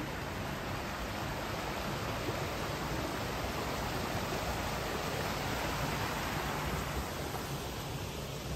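Steady rushing of flowing river water, swelling a little midway and easing off near the end.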